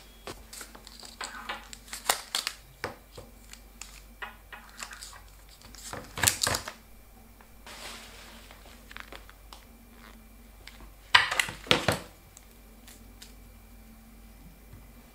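Packaged groceries being handled and set down on a tabletop: plastic packaging crinkles and rustles, and packs and tubs land with light knocks. The loudest rustling comes about six seconds in, and again at about eleven to twelve seconds.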